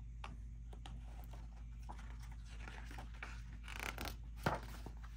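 Faint rustling and crinkling of a paper picture-book page being taken hold of and turned by hand, louder for a moment about four seconds in with a sharp paper tick just after.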